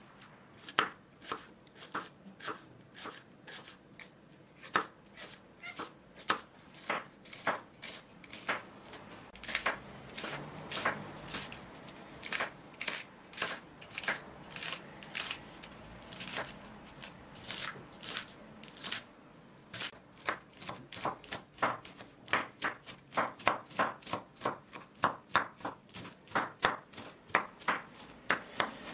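Kitchen knife chopping leeks on a wooden cutting board: even, sharp strikes of the blade through the leek onto the board, about two a second. After a brief pause about two-thirds of the way in, they quicken to about three a second as the leeks are chopped finer.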